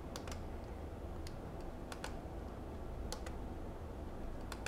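Faint clicks of the push-buttons on a FrSky Taranis Plus radio transmitter being pressed to navigate its menu: about ten short clicks, several in quick pairs, over a low steady hum.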